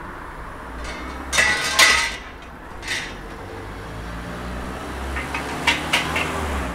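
Long metal poles clattering and knocking against each other as they are pulled out of a car's boot, in a few short bursts over a low steady rumble.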